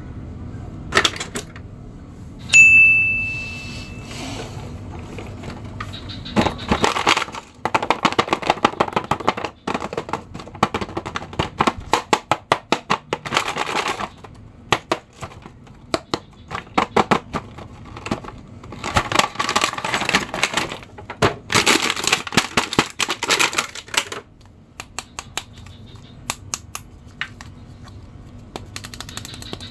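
Plastic packaging crinkling and crackling in bursts as an action figure is unwrapped by hand. A short bright ping rings out about two and a half seconds in and fades over a second or so.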